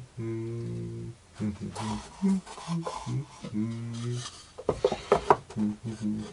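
Plywood parts being handled and fitted together: rubbing and scraping of wood on wood, with a quick run of sharp knocks about five seconds in. A low tune of held notes runs underneath.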